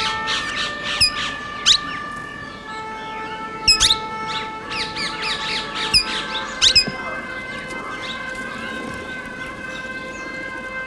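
Parakeets giving shrill squawking calls, each a quick downward sweep, in clusters for the first seven seconds or so. Under them runs a steady drone of held tones.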